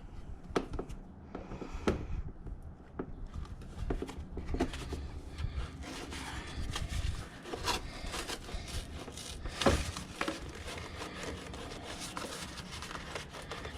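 Hands working with parts and hardware: scattered clicks and knocks mixed with rubbing and rustling, with one louder knock about ten seconds in.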